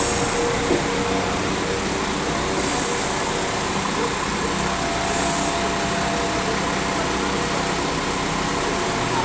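London Midland diesel multiple unit standing at the platform, its underfloor diesel engine idling steadily.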